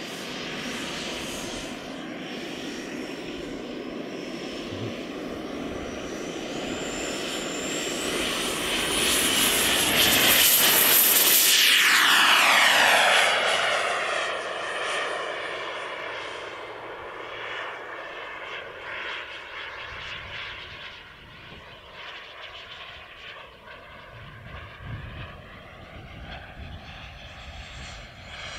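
Xicoy X-45 model gas-turbine engine of an RC jet trainer, a high whine rising in pitch as the jet gets going, loudest about ten to thirteen seconds in as it passes, then falling in pitch and fading as it flies away.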